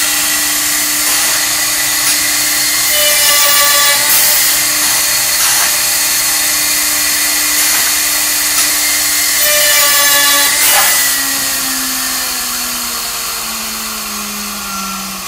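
High-speed router motor of a US Concepts CSR-300 CNC handrail drilling machine running with a steady whine while its plunging bit bores baluster holes in a wooden handrail, a cut every two to three seconds. About eleven seconds in the motor's pitch starts falling steadily as it slows.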